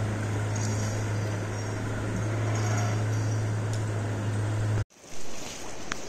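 Outdoor background noise dominated by a steady low hum, with faint high chirps over it. About five seconds in, the sound cuts out abruptly and is followed by a short burst of noise.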